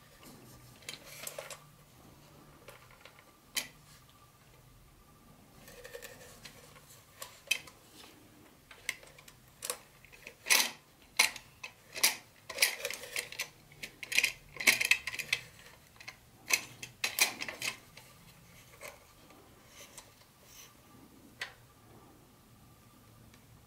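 Handling noise from a plastic toy locomotive being lifted from and turned over above its plastic packaging tray: a run of clicks, taps and short rustles, thickest in the middle.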